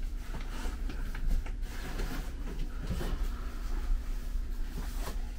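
Indoor shop ambience: a steady low rumble with scattered small knocks and clicks throughout.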